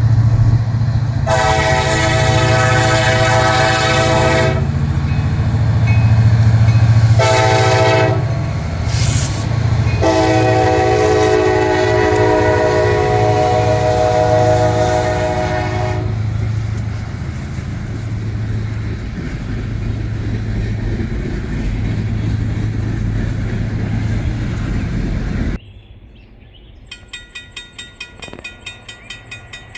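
Diesel freight locomotive sounding its multi-chime air horn in a long blast, a short blast and a long blast, the end of the long-long-short-long grade-crossing signal. The locomotive's engine rumbles steadily underneath. After an abrupt cut about four seconds before the end, a much quieter sound with a rapid, even ticking follows.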